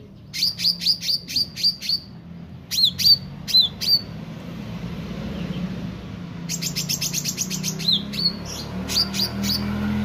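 Caged meranti (leafbird) singing: a quick run of high chirps, then a few louder down-slurred whistles, a pause of about two seconds, and another fast chattering run with more whistled notes.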